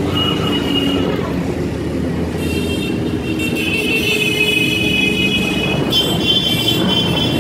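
Many motorcycles riding past one after another at low speed, their engines running together in a steady mix. From about two seconds in, a high steady squeal sits over the engines.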